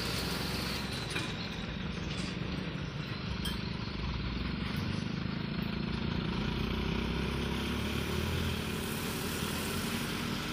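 Diesel engine of a light cargo truck running as it drives slowly across a rough, potholed junction. The engine gets louder about midway as it pulls away.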